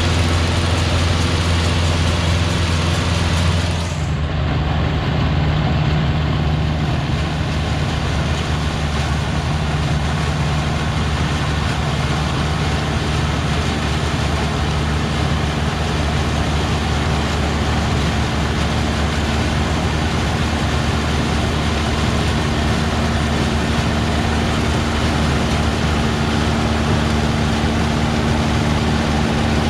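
Vintage harvesting machinery running in the field: a steady, loud engine drone with the clatter of the working machine. About four seconds in, the engine tone and hiss change abruptly, then it runs steadily again.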